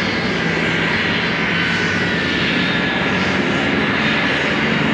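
Grumman TBF Avenger's radial piston engine running steadily.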